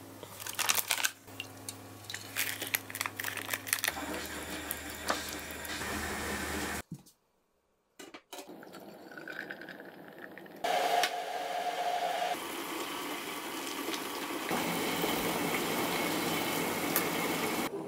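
Hot pot broth bubbling and liquid being stirred, heard as a string of short clips, each cut off abruptly, with a second of silence about seven seconds in.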